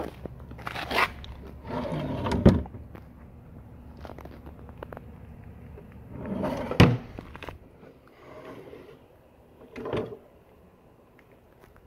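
Wooden drawers of a maple vanity cabinet being slid open and pushed shut several times, each stroke a short scraping slide ending in a sharp knock. The loudest knocks come about two and a half seconds in and just before seven seconds.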